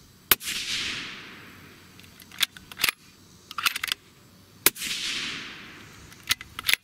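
Two shots from a suppressed Sig Cross bolt-action rifle in 6.5 Creedmoor, about four seconds apart, each trailing off over about a second and a half. Between and after the shots come short metallic clicks of the bolt being worked to chamber the next round.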